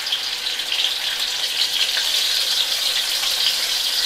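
Food frying in oil in a wok, a steady crackling sizzle.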